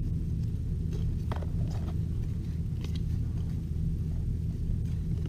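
A steady low hum, with a few faint, brief rustles and clicks from old baseball cards and their pack wrappers being handled.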